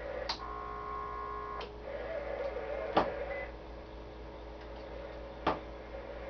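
Sharp clicks from a CB radio and its hand microphone being handled and switched, the loudest about three seconds in. Near the start a steady pitched tone sounds for about a second between two clicks. A low electrical hum runs underneath.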